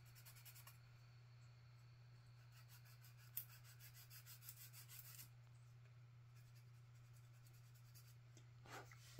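Faint scratchy rubbing of a small hobby brush being wiped on a paper towel, in short spells, with one light click about three and a half seconds in, over a low steady hum.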